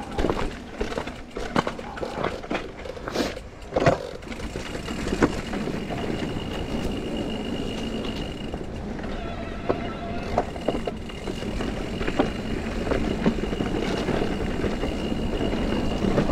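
Electric mountain bike riding over a wet, rough trail. For the first few seconds the bike knocks and rattles over the ground, then it settles into steady tyre and wind noise, with a thin high whine that comes and goes.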